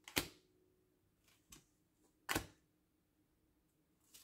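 Oracle cards handled one by one on a hand-held deck: three short, sharp card taps and flicks, the loudest about two and a half seconds in, with near silence between them.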